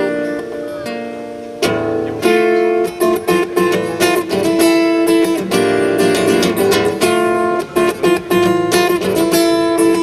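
Acoustic guitar strumming chords in a song's instrumental break, with a brief let-up about a second in before the rhythmic strumming picks up again.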